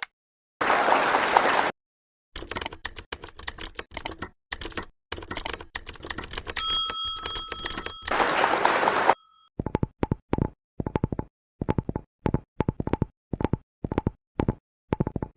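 A sequence of household objects sounded close against a microphone: a short burst of scratchy rubbing, a run of rapid irregular clicks, a single bell-like ding that rings for about a second and a half, another burst of rubbing, then steady tapping about twice a second.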